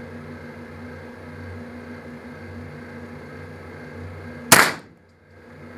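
A single shotgun shot about four and a half seconds in: one very loud, sharp report that dies away within half a second. A steady low hum runs underneath until the shot.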